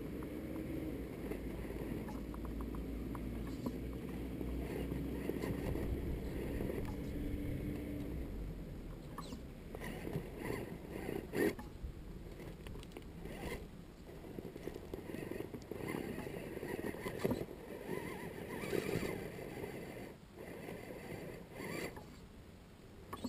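Scale RC rock crawler's electric motor and gearbox whining as it creeps up a rock face, steady for the first eight seconds or so. After that come scattered clicks and knocks as its tyres and chassis scrabble on the stone.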